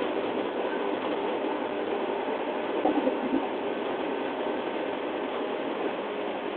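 JR East 113 series electric train heard from its MoHa 113 motor car through an open window: steady running noise of wheels on rail with the hum of the traction motors. It swells briefly about three seconds in.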